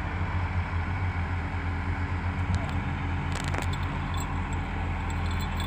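Heavy diesel engine idling steadily, with a few light metallic clicks a little past halfway.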